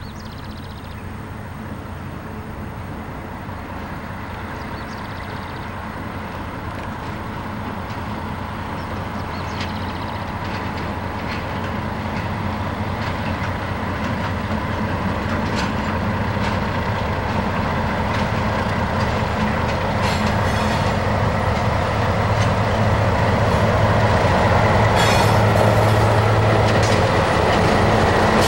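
An ALCo RSD16 and an EMD GR12 diesel locomotive working in multiple approach and draw close, their engines making a steady low drone that grows steadily louder. Sharp clicks of wheels over rail joints come more and more often as the train nears.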